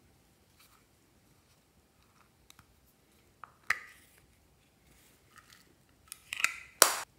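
A small plastic toy case being handled. There is a sharp click about halfway in as it is opened, then a quick clatter of plastic clicks and knocks near the end as it is tipped and tapped to empty foam pieces and sequins onto the slime.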